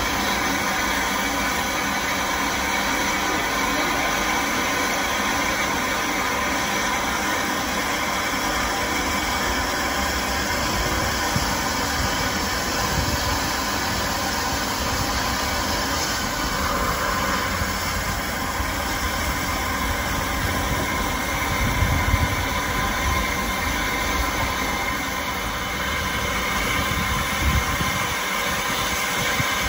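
A train running steadily at a station platform: a constant rumble and hum that does not change.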